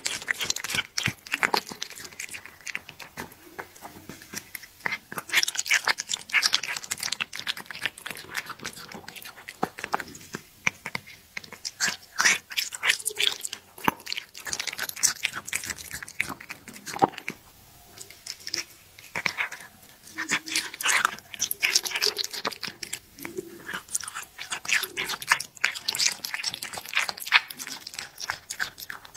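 A cat eating raw meat chunks close to the microphone: a quick, wet run of chewing, biting and licking clicks, with a short lull just past halfway.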